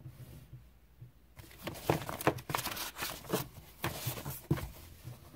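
Paper pages of a booklet being turned and handled: a quick run of rustles and flaps that starts about a second and a half in and dies away near the end.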